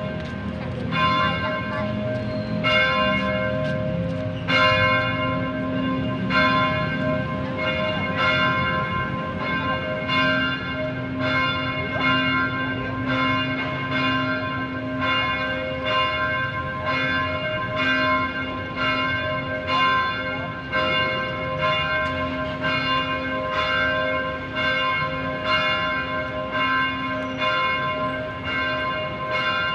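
Church bell ringing, struck over and over at a steady pace, each stroke ringing on into the next.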